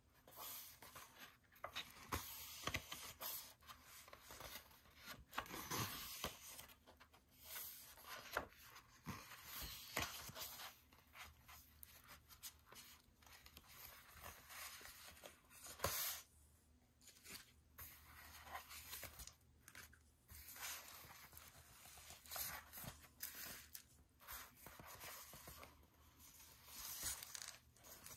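Album photobook pages being turned and paper inserts handled: faint, irregular paper rustling and sliding, with a sharper snap of paper about halfway through.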